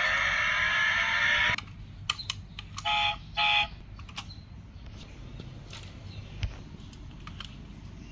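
Toy diecast car's built-in sound module playing an engine sound through a tiny speaker, rising in pitch, then cutting off abruptly about a second and a half in. Two short electronic beeps follow about three seconds in, then scattered small plastic clicks as the model's doors and bonnet are worked by hand.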